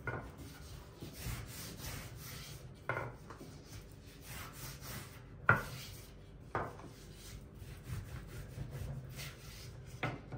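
Long thin wooden rolling pin (oklava) rolling yufka dough wound around it back and forth over a floured silicone mat, a soft steady rubbing. A few sharp knocks come through, the loudest about five and a half seconds in.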